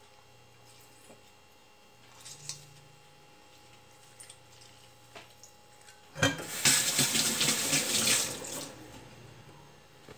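Water running from a kitchen tap for about two and a half seconds, starting suddenly about six seconds in, after a few faint small clicks.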